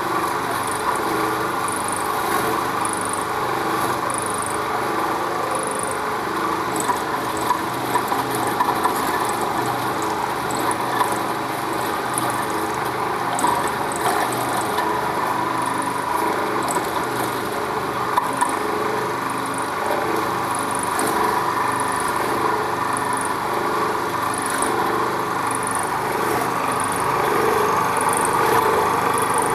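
Electric fish-waste grinder with a 1 hp single-phase motor running steadily while it grinds fish waste, with scattered sharp clicks over the hum.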